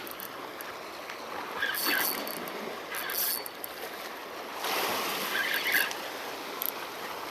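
Sea water washing and splashing against shore rocks, coming in a few surges over a steady wash.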